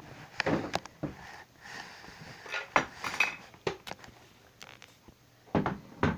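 Scattered knocks and light clatters of hard toy pieces being handled and set down, loudest about three seconds in and again near the end.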